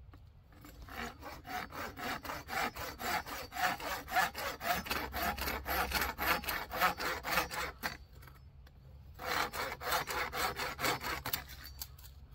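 A machete's saw-toothed spine sawing back and forth through a thin green branch in quick, even strokes. The strokes pause about eight seconds in, then resume.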